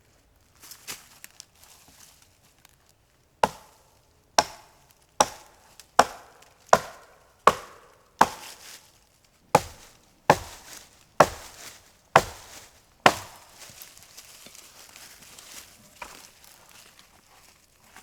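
About a dozen chopping blows from a hand tool, a little under a second apart, each sharp with a short ring-out. A few seconds of softer rustling follow.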